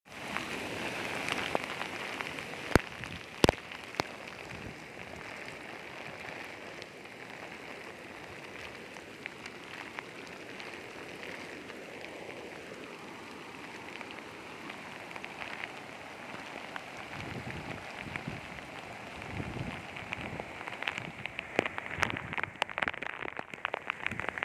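Steady rushing noise of floodwater flowing across the fields, with a few sharp clicks a few seconds in. From about two-thirds of the way through, wind buffets the microphone in gusts.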